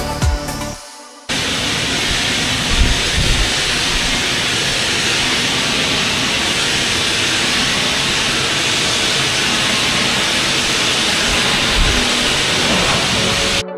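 Pressure-washer lance spraying a high-pressure jet of water onto brick paving: a steady, loud hiss of spray that starts suddenly about a second in, after electronic music, and runs on evenly.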